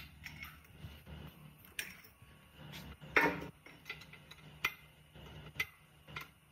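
Steel wrench clinking against the cylinder-base nuts and cast-iron body of an old three-cylinder air compressor pump as a nut is worked loose: a handful of sharp metal clinks, with one longer, louder scraping clank about three seconds in.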